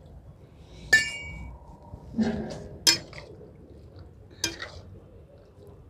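Steel utensils clinking against an iron kadhai as water is poured in and the vegetables are stirred with a ladle. A ringing metallic clink comes about a second in, then sharper knocks near three seconds and again around four and a half.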